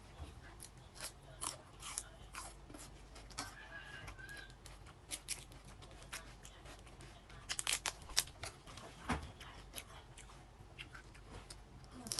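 Close-up eating of boiled crab: shells cracking and crunching, with chewing and mouth sounds, and a burst of louder cracks about eight seconds in.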